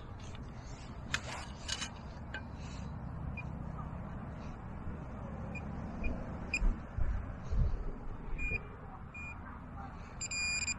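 Metal detector giving short tone signals: a few faint blips in the middle and a louder beep near the end, over a steady low rumble of wind on the microphone, with a couple of sharp knocks early on.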